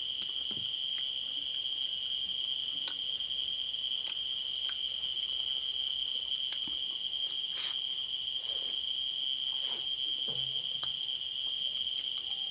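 Steady, high-pitched chorus of crickets trilling without a break, with light clinks of a spoon and fork on a plate.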